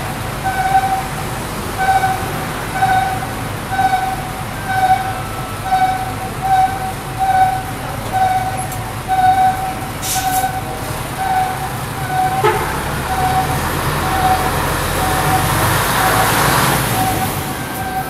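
Abnormal cry-like squeal from the rear of a small route bus, a pitched tone pulsing about once a second and growing fainter as the bus pulls away. A short hiss about ten seconds in, and rising traffic noise near the end.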